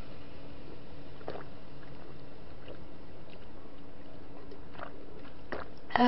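A person drinking from a plastic cup, with a few faint swallows. Near the end comes a short, loud, voiced 'ahh' of breath after the drink.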